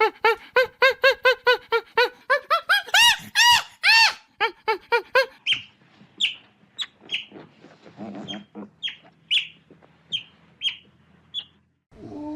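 Chicken calls: a fast run of clucking calls, several a second, rising to a few louder, higher calls about three seconds in, then scattered short high chirps like chicks peeping for the second half.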